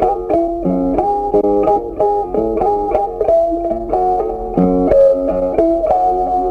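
Background music: a melody of quick plucked-string notes, like a guitar, at a steady level.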